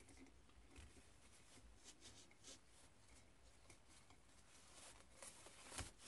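Near silence with faint rustling and soft, scattered ticks of hands working satin ribbon around a bird cage's bars, one slightly louder tick near the end.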